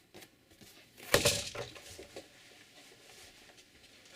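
A sudden clatter of knocks about a second in, like hard objects being moved or set down, dying away into faint handling sounds.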